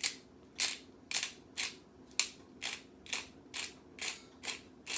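Pepper mill being twisted, grinding pepper in short rasping strokes about twice a second.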